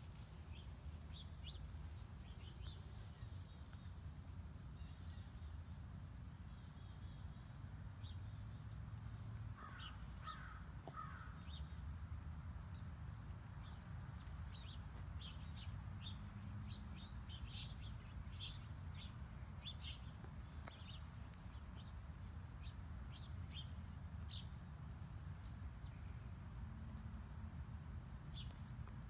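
Outdoor ambience with wild birds: small birds give short high chirps again and again, most of them in the second half, and a bird gives three lower calls about ten seconds in. Under them run a steady high hum and a low rumble.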